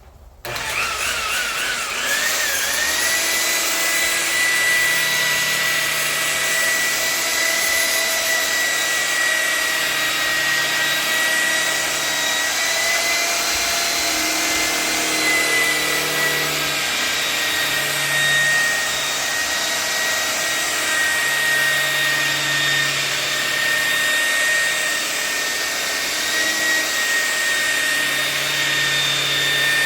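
Handheld electric car polisher starting up about half a second in, its motor whine climbing as it spins up, then running steadily while buffing the paint, the pitch wavering slightly as it is worked.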